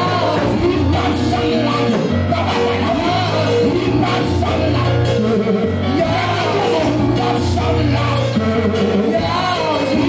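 Live Pentecostal worship music: voices singing over a band, with a bass line moving from note to note and repeated drum or cymbal hits.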